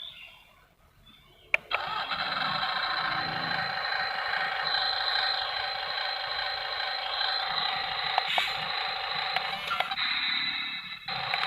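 Electric gear motors of a radio-controlled toy construction vehicle whining steadily. The whine starts with a click about a second and a half in, drops away briefly near the end, then picks up again.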